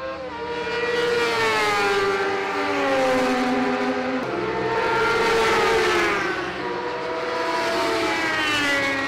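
Racing superbike engine at high revs passing on the track, its pitch falling over the first few seconds, jumping up about four seconds in, then rising again near the end.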